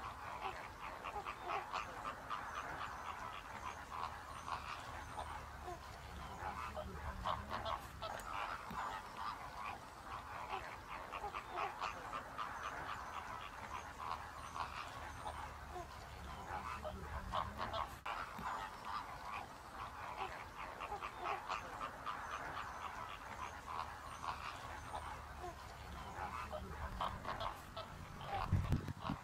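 A flock of greater flamingos calling: a dense, continuous chorus of goose-like honking and gabbling from many birds at once. A low thump comes near the end.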